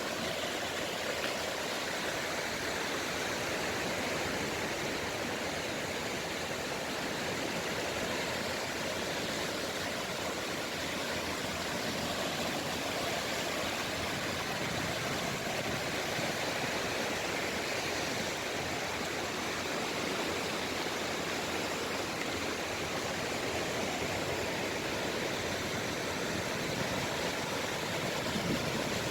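Sea waves breaking and washing on the shore, heard as a steady, even rushing hiss with no single wave standing out.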